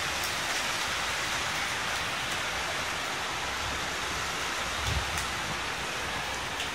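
Heavy rain falling steadily on a wet street and open ground, an even hiss with no speech, and one brief low bump about five seconds in.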